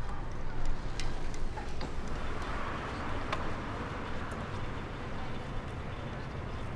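Outdoor street ambience: a steady rush of noise, like distant traffic, that swells a little a few seconds in, with a few faint sharp clicks.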